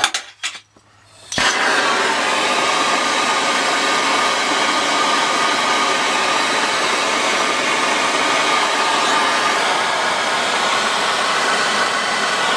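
Gas torch lit with a sharp pop about a second and a half in, after a few clicks, then its flame hissing loudly and steadily as it heats the tip of a power pile (thermopile) generator.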